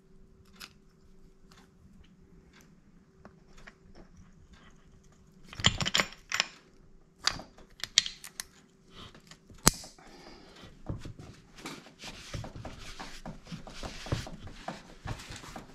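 Small metal parts clicking and clattering as a kickstarter shaft with its coil spring and gear is worked into a Yamaha Banshee's crankcase by hand, with a cluster of clicks about six seconds in and one sharp click near ten seconds. After that comes softer scratchy rubbing as a rag wipes the part.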